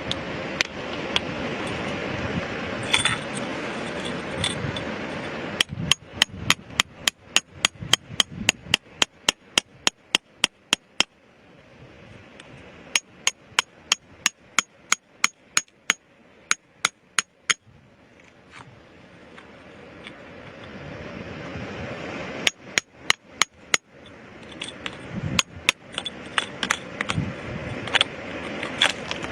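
Runs of quick, evenly spaced hammer blows, metal striking stone or a chisel with a clinking ring, about four a second, stopping and restarting several times. A steady rushing noise lies underneath in the first seconds and between the runs.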